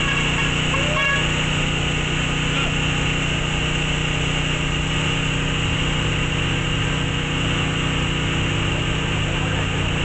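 A small motor running steadily, a constant unbroken drone with a fixed hum.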